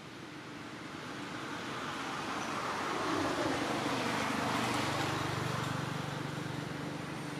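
A motor vehicle approaching, its engine noise growing louder over the first few seconds and then holding as a steady low hum.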